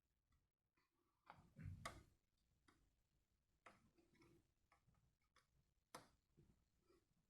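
Faint, scattered clicks and taps of a small precision screwdriver and tools working against an iPhone's tiny screws and frame, with a duller handling knock about one and a half seconds in.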